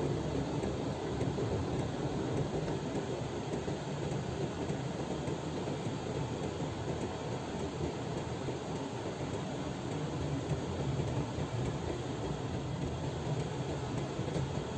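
Steady rumble of a vehicle driving along a road: engine and tyre noise with no breaks.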